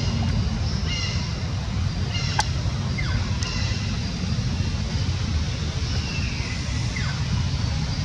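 Outdoor ambience with a steady low rumble. Over it come short, high chirping calls about once a second in the first half, and a longer falling call a little before the end.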